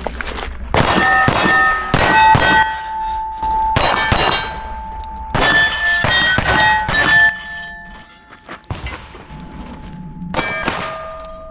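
Pistol shots hitting steel plates, each hit followed by the plate's ringing clang, fired in quick clusters with short pauses between targets; the last shot and ring come near the end.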